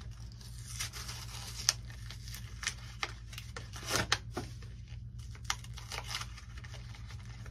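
A plastic blister pack of glue being torn and peeled open by hand: irregular crinkling and crackling with a few sharp snaps of the plastic.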